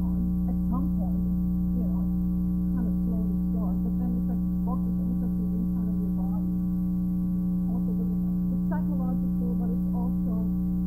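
Steady electrical mains hum, a stack of constant tones, fills the recording and drowns out faint, very quietly recorded speech beneath it.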